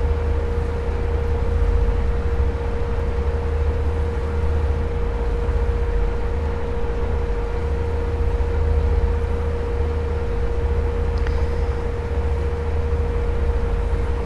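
Steady background noise: a low rumble with a constant mid-pitched hum running under it, and a faint click about eleven seconds in.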